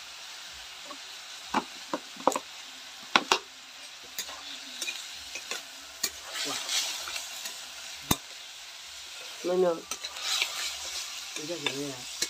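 Frog meat frying in an iron wok, stirred with a metal spatula: a steady sizzle with sharp scrapes and knocks of the spatula against the pan, most of them a second or two in and one more about eight seconds in.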